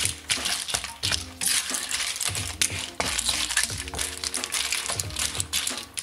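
Clams in their shells clattering and clinking against a stainless steel wok and against each other as they are stir-fried with a wooden spatula, over the hiss of the hot pan.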